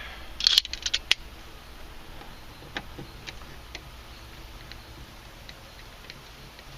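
Screwdriver working the door-panel screws loose: a quick cluster of sharp clicks about half a second to a second in, then faint, irregular ticks.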